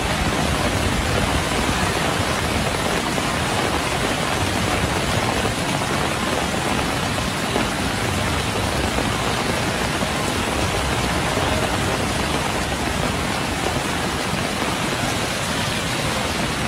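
Flash-flood torrent of muddy water rushing down a street: a steady, unbroken rushing noise.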